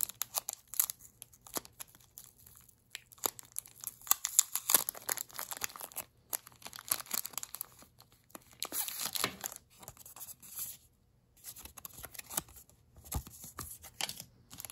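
Thin clear plastic packaging sleeve and its paper label crinkling and crackling as they are handled and pulled at, in irregular bursts with a couple of short pauses.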